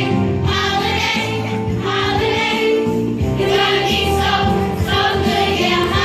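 Christmas music: a choir singing with instrumental accompaniment.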